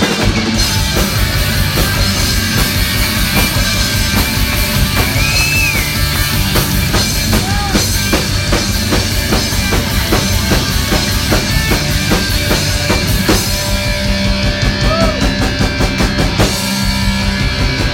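Rock band playing an instrumental break between vocal lines: a full drum kit and bass under electric guitar, with a few bent guitar notes.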